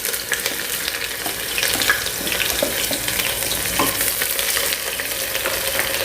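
Chopped onions sizzling as they fry in hot oil in a pressure cooker: a steady hiss full of small crackles. They are being stirred, with a few short scrapes of the spatula against the pot.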